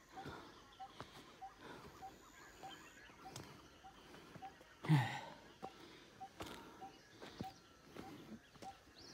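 Footsteps on a rough stone-and-dirt trail and a walker's breathing while climbing uphill, with one louder sighing breath about halfway through. Behind it, a bird repeats one short note about twice a second.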